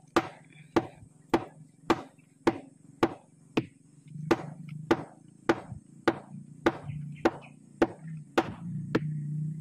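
A mallet beating the flower stalk of a sugar palm in steady, evenly spaced blows, a little under two a second. The stalk is being bruised by beating to bring on the flow of sap before it is tapped.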